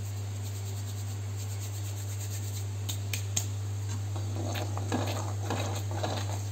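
Dried fenugreek leaves (kasuri methi) rubbed and crumbled between the palms over a metal kadhai, then a metal ladle stirring the thick gravy with soft scrapes and clinks from about four seconds in. Underneath is a steady low hum.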